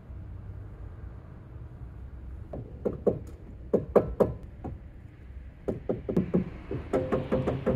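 A run of sharp knocks, several a second, in uneven groups, starting about two and a half seconds in over a low steady hum; a few steady tones join near the end.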